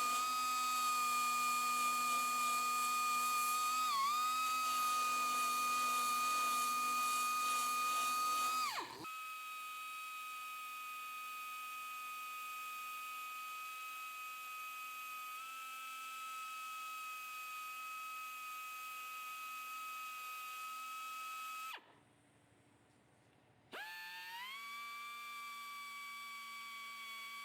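High-speed grinder whining as it spins with little load, its pitch dipping briefly under load about four seconds in. It cuts out about nine seconds in and runs on more quietly. Near the end it stops for a moment, then spins back up with a rising whine.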